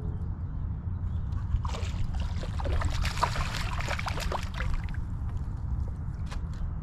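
Water splashing and crackling for about three seconds, starting about one and a half seconds in, over a steady low rumble.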